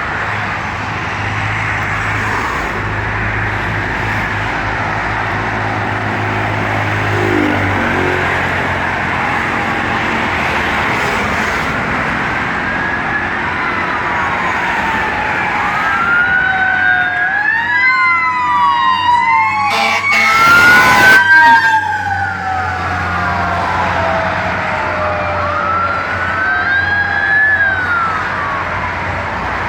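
Fire engine responding on an emergency run, its siren wailing in long rising and falling sweeps over the steady drone of its engine and road noise. The siren is loudest through the second half, and a brief loud burst of noise comes about two-thirds of the way through.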